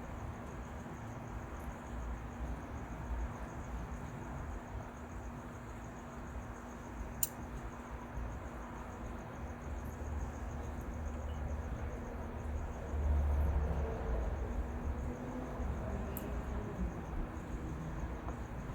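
Crickets chirping steadily, with a low rumble that swells about two-thirds of the way through and one sharp click about seven seconds in.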